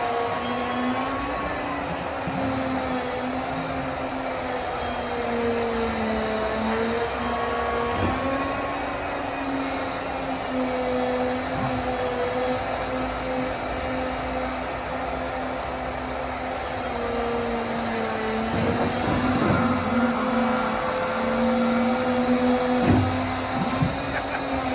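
Hydrogen-powered excavator's driveline running under test: a steady machine whine made of several tones that drift up and down in pitch as the load shifts, with a few knocks near the end.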